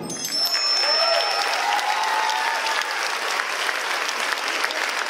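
Theatre audience applauding steadily, with a few voices calling out and cheering over the first couple of seconds.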